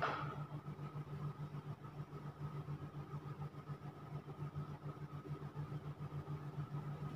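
Steady low mechanical hum with a fast, even pulse, like a motor or fan unit running, with a faint steady high tone over it. A brief scrape right at the start.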